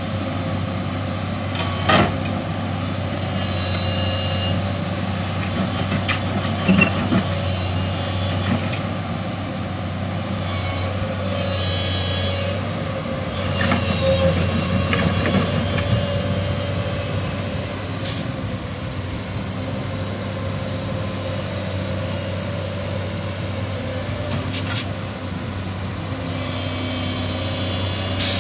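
Excavator's diesel engine running steadily under load as the machine is driven up onto a hauling truck, with a few sharp metallic clanks along the way.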